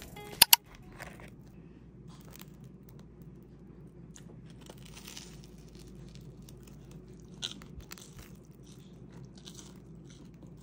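Crisp grilled toast of a hot cheese sandwich crunching and crackling in short bursts as it is handled and pulled apart, with two sharp clicks about half a second in, over a low steady hum.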